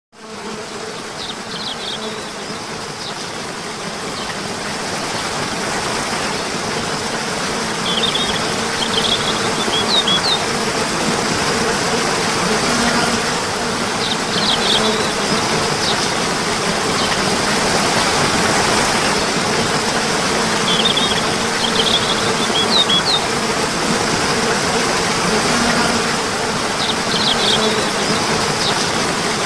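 Nature recording of steadily running water with a faint steady hum underneath, fading in at the start and growing louder over the first several seconds. Short bursts of high bird chirps come back every six seconds or so.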